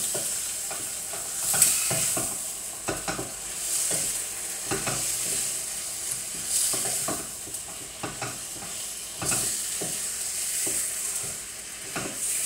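Chicken pieces sizzling in hot oil with curry paste in a frying pan while a spatula stirs and turns them, the sizzle swelling and easing in waves, with scattered scrapes and knocks of the spatula against the pan.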